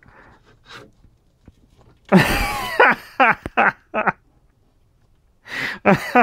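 A man's wordless vocal reaction. About two seconds in comes a loud groan-like exclamation, followed by a run of short laugh-like bursts. Near the end there is a sharp breath and a few more bursts.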